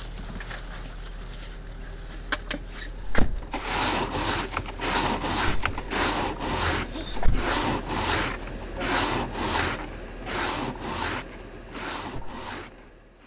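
Rhythmic scraping across the snowy windshield of a car warming up after a cold start, about two strokes a second from a few seconds in until near the end, over the low hum of the idling engine.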